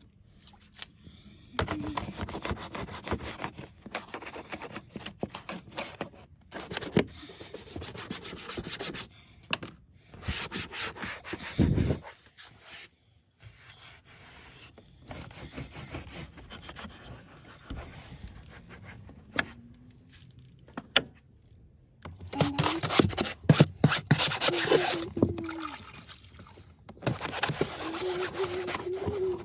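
Scrubbing and wiping of plastic minivan interior trim with a microfibre cloth: fast rubbing strokes in bouts with short pauses, loudest about two thirds of the way through.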